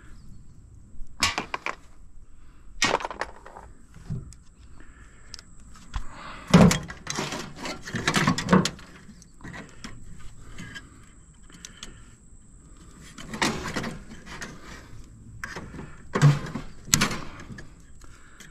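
Irregular knocks, clanks and clatter of metal parts being handled and pulled apart while an air-conditioning unit is dismantled for scrap. The loudest clanks come about six and a half seconds in and again near the end.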